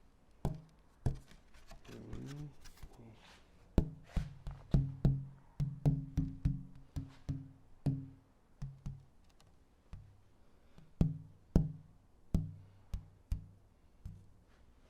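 Pieces of burled wood tapped one after another, each sharp knock ringing briefly with a low pitch, as they are sounded to find which ones ring a G. The taps come in a quick run in the middle, then more spaced out.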